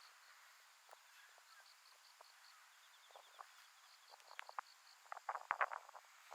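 Insects chirping in runs of short, evenly repeated high pulses, under a faint outdoor background. Near the end comes a flurry of sharp clicks and rustles, the loudest sound here.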